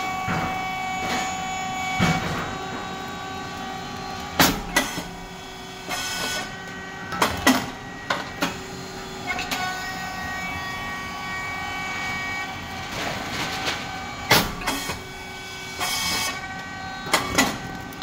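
SYP9502 rice cake popping machine running with a steady hum and whine from its motor and hydraulic pump. About every ten seconds comes a sharp crack as a batch of rice cakes puffs, then a hiss and a few mechanical clacks as the cycle goes on.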